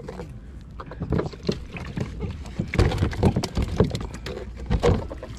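Water splashing and slapping at the side of a plastic fishing kayak, with irregular knocks and taps of fish and gear being handled aboard. The strikes come thickest about three to five seconds in.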